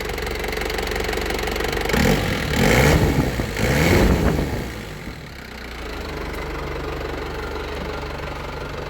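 2002 Holden Rodeo's 2.8 turbo diesel 4JB1T engine idling, revved twice in quick succession about two seconds in, each time rising and falling back, then settling to a steady idle.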